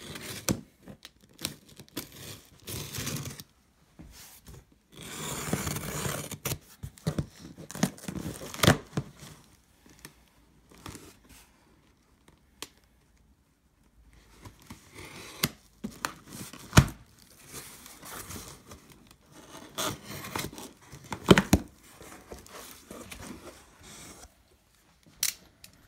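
Packing tape on a cardboard box being slit with a razor blade and torn away, and the cardboard flaps pulled open, rustling and tearing in irregular spells. Two sharp knocks stand out in the second half.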